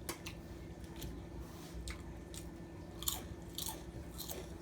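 Close-miked chewing of a mouthful of pasta salad, with scattered wet mouth clicks and smacks.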